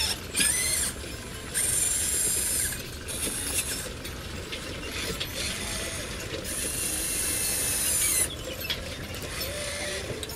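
Radio-controlled model excavator working, its small electric motors and gears whining in bursts of a second or two as the boom and arm move, over a steady lower mechanical running sound.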